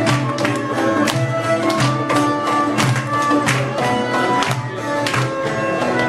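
Instrumental passage of Turkish folk music: a frame drum (def) keeps a steady beat under sustained melody lines from string instruments, with no singing.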